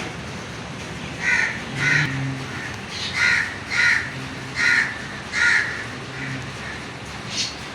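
A crow cawing: six loud, short caws, loosely in pairs, followed by a fainter call near the end.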